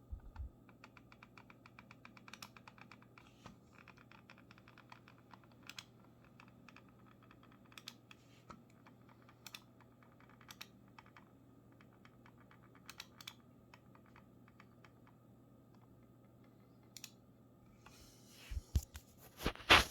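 Razer Viper Ultimate wireless mouse's plastic shell creaking as it is pressed: a quick run of fine crackling ticks, then scattered single creaks and clicks, with a few louder knocks near the end. The creak is a fault that is getting the mouse sent back for warranty repair.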